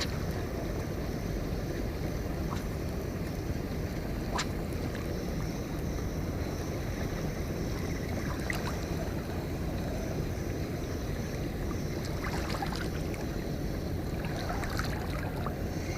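Steady low outdoor rumble of wind and water, with a few faint clicks and one sharp click about four seconds in.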